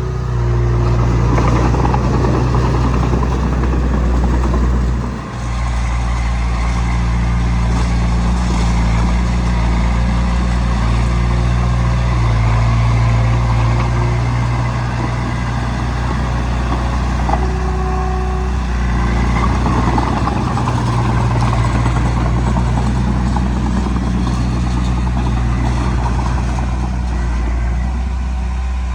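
Diesel engine of a Komatsu D20P crawler bulldozer running steadily while pushing sand, dipping briefly about five seconds in, with a few short squeaks.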